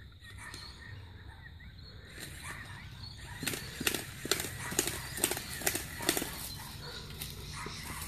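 Faint bird chirps, then a quick run of about eight sharp crackling clicks, a little under three a second, over a low steady rumble.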